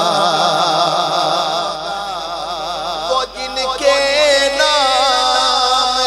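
A solo male voice sings a naat without instruments, drawing out a long ornamented note with heavy vibrato. He breaks off briefly about three seconds in, then starts a new held phrase.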